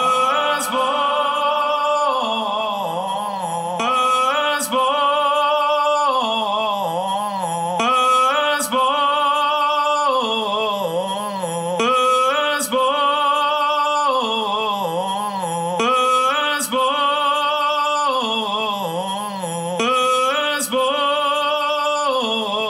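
A man's recorded singing voice played back from a multitrack session through EQ, compression and reverb. A phrase of about four seconds repeats over and over on a loop.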